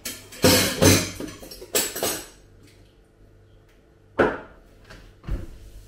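Kitchen utensils and dishes clattering and knocking on a countertop: a cluster of loud knocks in the first two seconds, then two single knocks near the end.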